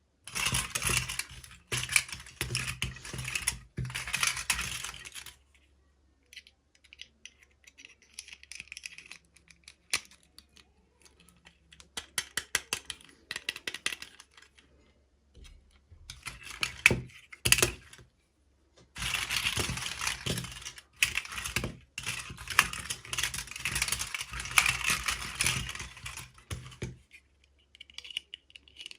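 Plastic toy packaging crinkling and rustling as miniature toys are unboxed by hand. Long stretches of dense crackling alternate with quieter spells of small clicks and taps from plastic pieces being handled.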